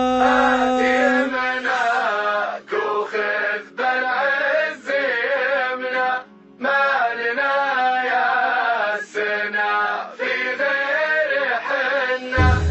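A patriotic Arabic song sung in a chanting style, voice-led with little low accompaniment. The singing breaks off briefly about six seconds in, and deep drums or bass come back in near the end.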